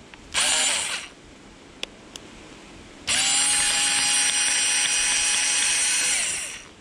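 Small cordless electric screwdriver working a screw out of the back of a plastic digital alarm clock: a short spin of under a second, then a steady run of about three and a half seconds that winds down as it stops.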